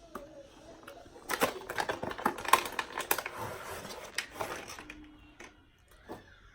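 Small hard plastic parts and packaging being handled, a quick run of clicks and rattles lasting a few seconds, as the nozzles and body of a facial pore vacuum are taken out and sorted.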